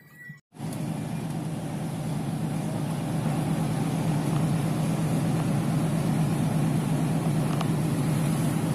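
Steady low drone of a passenger ship's engines, mixed with wind and water noise on deck. It starts abruptly about half a second in, after a moment of silence.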